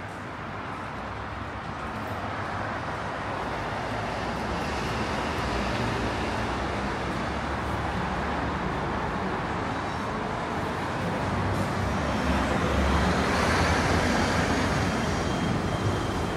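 Steady rumble and hiss of vehicle noise that swells gradually, loudest about three-quarters of the way through, with faint high whining tones near the end.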